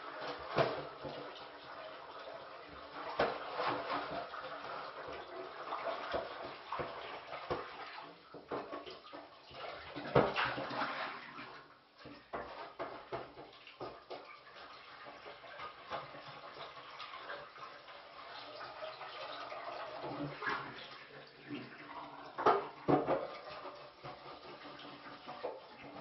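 Tap water running into a kitchen sink during washing-up by hand, with scattered clinks and knocks of dishes and cutlery; the loudest knocks come about ten seconds in and again near the end.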